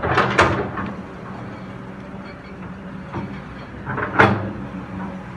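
Kobelco SK200 excavator's diesel engine running steadily, with short sharp high-pitched bursts at the start and again about four seconds in.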